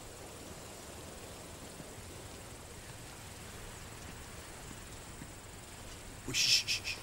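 Outdoor insect ambience: a faint, steady high-pitched insect drone over a soft hiss. Near the end comes a short, loud rattling buzz of rapid pulses lasting about half a second.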